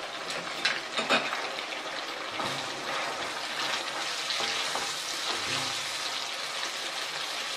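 Chilli sauce frying in a stainless-steel wok while a wooden spatula stirs it, a steady hiss with a few sharp clicks about a second in.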